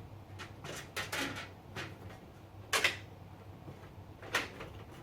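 Scattered knocks and clicks of hard parts being handled inside a PC case as a water-cooling radiator is taken down, the sharpest about three seconds in, over a faint low hum.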